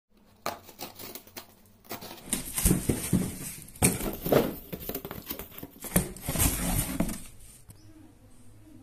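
A cardboard shipping box being opened by hand. First come a few light ticks as a pen tip scores the packing tape, then loud scraping, rustling and knocks as the flaps are pulled open and the contents handled, going quieter near the end.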